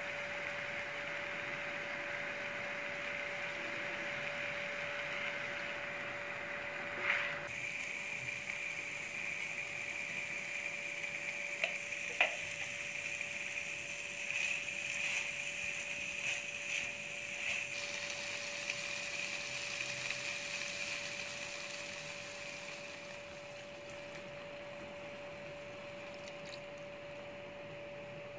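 Diced chicken and onion frying in a pan with a steady sizzle, the spatula now and then clicking and scraping against the pan, over a steady hum. In the last few seconds the sizzle turns quieter, with the chicken now simmering in added water.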